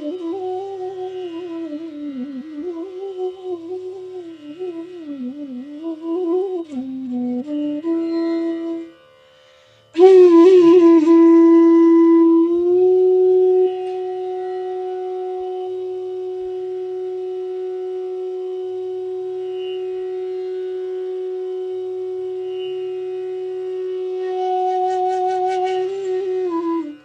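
Bansuri, the North Indian bamboo flute, playing a slow raga melody with bending, ornamented phrases. After a short pause about a third of the way in, a strong new attack settles into one long held note that lasts to the end, swelling slightly near the end.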